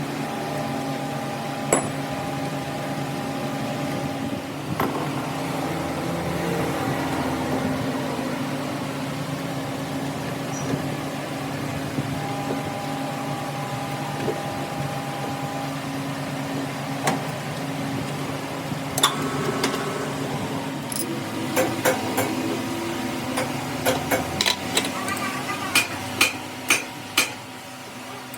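A steady machine hum, with a cluster of sharp metal taps or clicks in the last several seconds.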